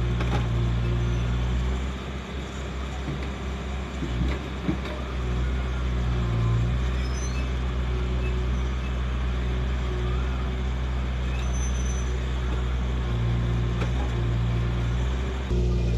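Case 770EX Magnum backhoe loader's diesel engine running under load as it digs and swings soil, easing off about two seconds in and picking up again around six seconds, with a couple of sharp knocks about four seconds in.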